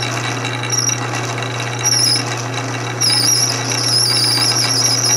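Metal lathe running with a twist drill boring into a spinning carburetor cap off an antique Maytag engine, over a steady motor hum. The drill squeals in the cut, a high wavering squeal in short spells at first and continuous from about halfway through, which the operator puts down to a tight hole.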